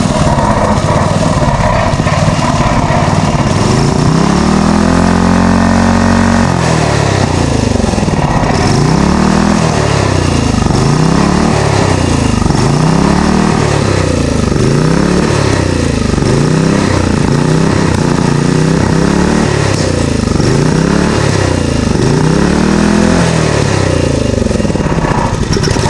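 Flathead Briggs & Stratton 5 hp single-cylinder engine running and hunting. Its speed swells and sags over and over, about once every second and a half, after one longer rise and fall a few seconds in. It runs poorly with a worn-out carburetor diaphragm that the owner calls definitely shot.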